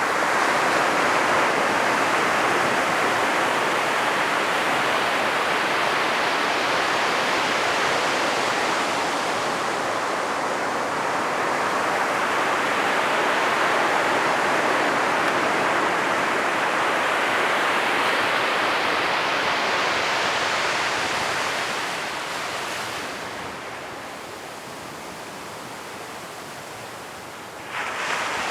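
Ocean surf breaking and washing ashore in a continuous rushing noise. It eases off for several seconds near the end, then surges back sharply just before the end.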